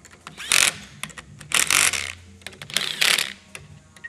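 Cordless impact driver with a socket running in three short bursts, each about half a second, tightening down the bolts of a vise clamp block.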